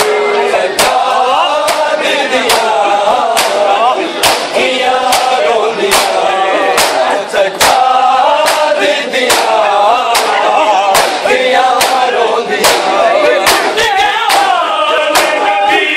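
Male voices singing a Punjabi noha, a Shia lament, led by the reciter with the group joining in. Sharp, even beats of about one a second run under the singing: the mourners' chest-beating (matam).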